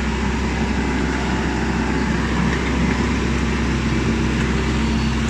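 Off-road vehicle engine running steadily at an even, low speed, a continuous low hum with no revving.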